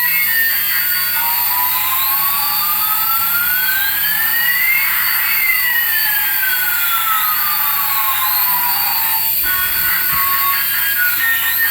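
Jet-engine sound effect from a toy airliner: a steady high hiss with one whine rising in pitch and another falling across it, ending about nine seconds in.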